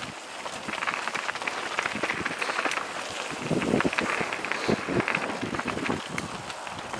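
Mountain bike rolling fast down a dirt trail strewn with dry leaves: a continuous crackle of tyres over leaves and dirt, dense with small clicks and rattles from the bike, with heavier rumbles around the middle.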